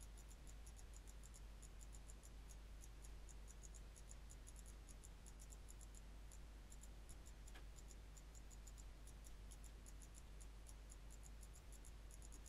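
Near silence with faint computer mouse clicks, several a second, over a low steady hum, as edges are clicked one by one in the CAD program.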